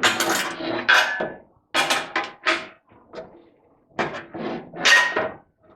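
Metal oven door hinges being worked out of the door, knocking and clinking in a series of short bursts, one near the start, a few in the first three seconds and a longer clatter about four seconds in, some with a brief metallic ring.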